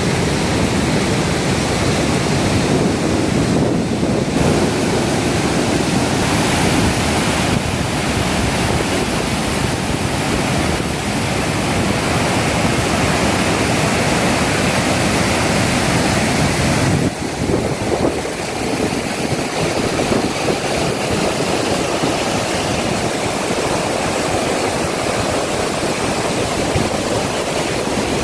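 Waterfall: a steady, continuous rush of falling water, with a slight shift in tone about two-thirds of the way through.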